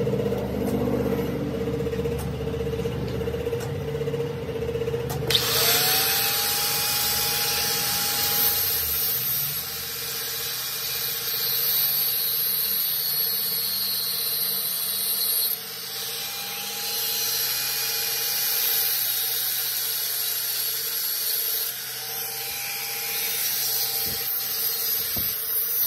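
Angle grinder with a thin cut-off disc running, then from about five seconds in cutting through a rusty steel rod clamped in a vise. A harsh, high-pitched grinding rides over the motor's whine, and the pitch and level shift as the disc is pressed into the cut.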